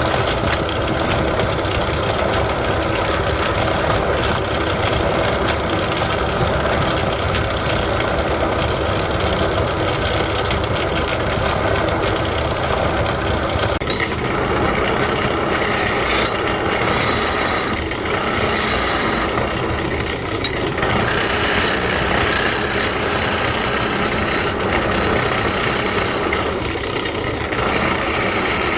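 Wood lathe running steadily with a turning tool cutting the spinning wood; the cutting sound changes in character about halfway through.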